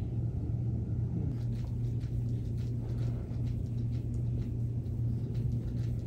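A steady low room hum, with faint, scattered soft rustles and ticks of hands massaging a bare back from about a second in.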